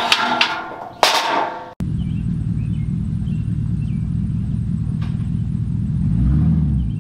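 Metal trailer ramp clanking twice as it is handled, then, after a cut, the steady low rumble of a truck engine that swells about six seconds in.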